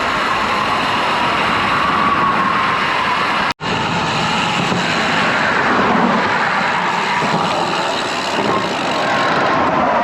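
Wind rushing over the microphone of a moving bicycle, mixed with highway traffic going past, as a steady loud noise. The sound drops out completely for a split second about three and a half seconds in.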